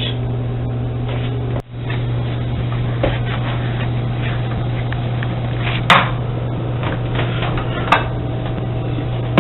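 A steady low hum with a faint hiss over it, which cuts out for a moment about one and a half seconds in. A few light clicks sound, near the middle and again near the end.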